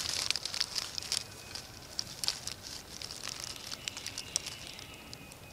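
Dry leaf litter crackling and rustling: a scatter of small sharp ticks and crunches, thick at first and thinning out over the seconds.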